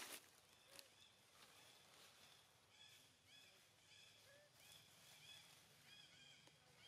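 Faint high-pitched chirping calls from an animal: short arched notes in quick runs, several a second, starting about a second in. A soft knock right at the start is the loudest moment.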